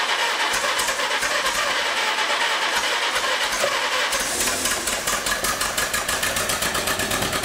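Farmall C tractor's four-cylinder gasoline engine running, uneven at first, then settling into a rapid, even beat about four seconds in.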